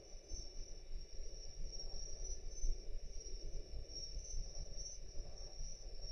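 Quiet room background: a steady high-pitched whine over a low rumble, with no distinct event.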